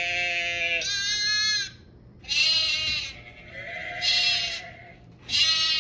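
Sheep bleating: about five bleats in a row, each about a second long.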